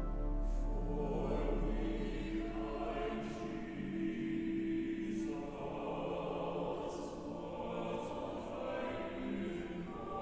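A choir singing a hymn in long held notes, the sung 's' sounds coming through a handful of times.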